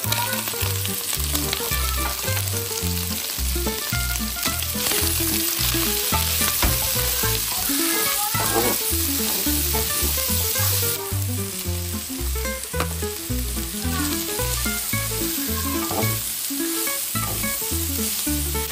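Food sizzling in a hot frying pan, with background music carrying a rhythmic bass line underneath; the sizzle eases somewhat about halfway through.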